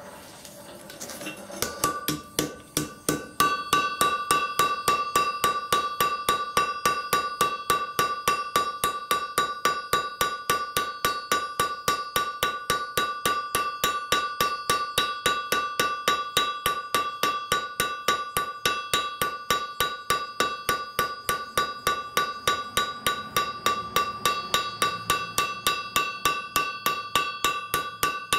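Blacksmith's hand hammer forging a red-hot piece of file steel on an anvil, in quick steady blows about three a second, with the anvil ringing on between blows. The blows begin a couple of seconds in and get heavier soon after.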